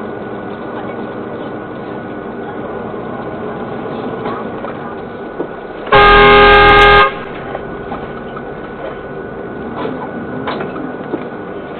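A car horn sounds once, a loud blast of about a second, about six seconds in, over steady traffic and road noise.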